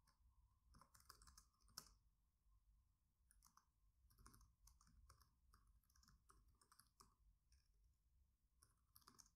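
Very faint computer keyboard typing: a run of quiet key clicks, one a little louder about two seconds in.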